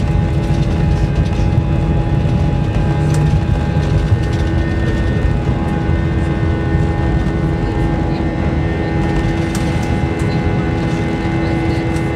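Airbus A320 cabin noise while taxiing, heard from a seat over the wing: the jet engines running at idle make a steady hum with several constant tones over a low rumble.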